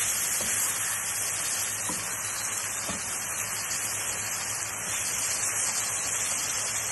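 Seekh kebabs in tomato-onion masala sizzling in a wok with a steady hiss, stirred with a wooden spatula that gives a few faint knocks.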